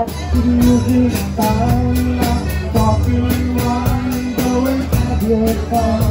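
Live band playing an instrumental passage: a gliding lead melody over strummed acoustic guitars, electric bass and a steady drum beat.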